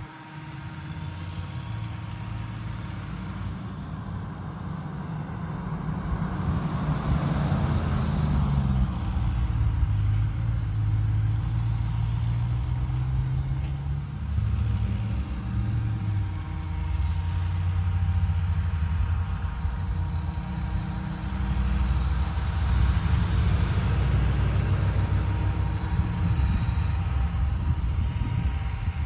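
Low rumble of a motor vehicle's engine running, growing louder about seven seconds in and staying loud.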